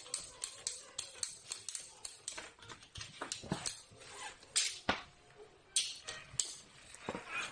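Ratchet cable cutter clicking in a steady rhythm, about three sharp clicks a second, as its handle is pumped to drive the blade through a thick cable. In the second half come a few louder, sparser clicks and knocks as the cut is completed and the jaw is swung open.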